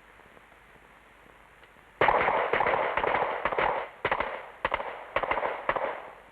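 A volley of rapid pistol fire from several shooters. The shooting starts suddenly about two seconds in, comes dense for about two seconds, then breaks into a few scattered shots that taper off.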